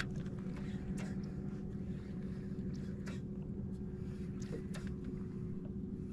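Faint clicks and knocks of a fishing rod and reel being handled from a kayak: a sharp click at the start, then a handful more spaced a second or two apart, over a steady low hum.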